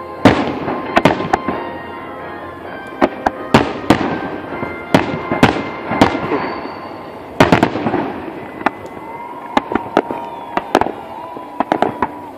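Large aerial firework shells bursting in a rapid, irregular series of loud bangs, each with a rolling echo that fades away.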